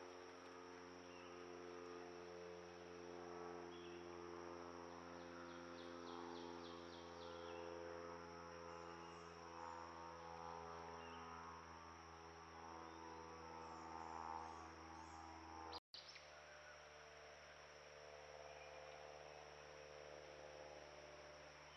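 Faint outdoor ambience: a steady high insect drone with a few faint chirps over a steady low electronic hum from the trail camera's recording. It drops out for a moment about 16 seconds in, where one clip joins the next.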